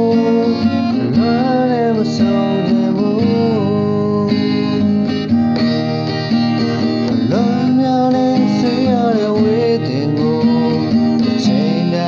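Music: strummed acoustic guitar with a gliding melody line over it, from a song cover.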